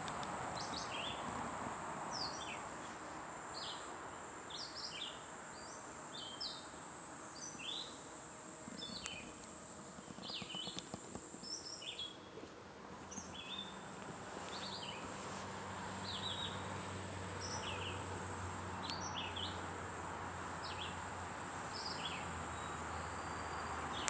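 Small birds chirping in short, scattered calls over a steady high-pitched insect buzz and a soft rushing hiss. A low hum comes in about halfway and fades near the end.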